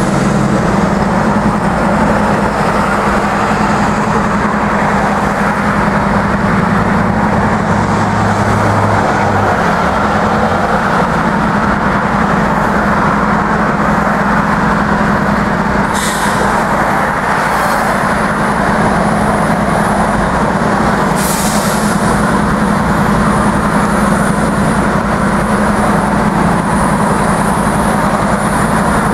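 Norfolk Southern diesel-electric locomotives rolling past, a steady loud engine drone mixed with wheel and rail noise. Two brief hisses come a little past the halfway mark.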